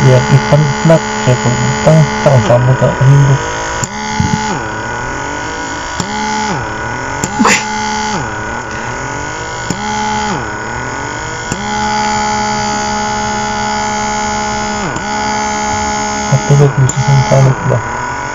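Small electric vacuum pump of a rechargeable blackhead suction cleaner running with a steady hum, its pitch sagging and recovering several times as the tip is moved over facial skin. Louder, uneven low-pitched bursts come in the first few seconds and again near the end.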